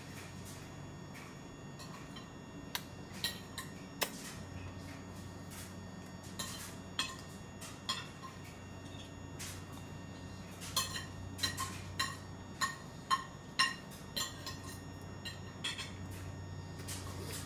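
Irregular light clinks and taps against a ceramic bowl, each with a short ring, as a toddler's hand picks food out of it. They come thicker in the second half, over a low steady hum.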